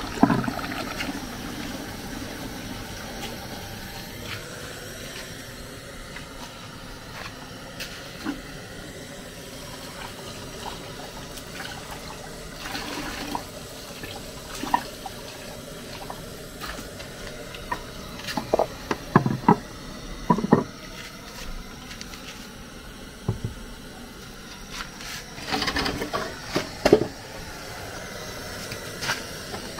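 Water splashing and pouring as palm nut fruits are rinsed in a metal pot and water is run from an outdoor tap, with clusters of sharp knocks later on.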